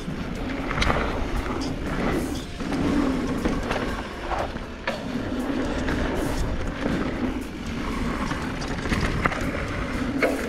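2019 Specialized Turbo Levo e-mountain bike riding fast down a dirt trail: a steady rush of tyre and wind noise, with many sharp clicks and rattles from the bike over the bumps.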